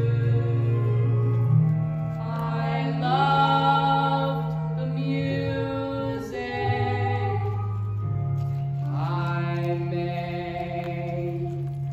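Live musical-theatre song: long held sung notes with vibrato over sustained accompaniment chords, the chords changing a few times.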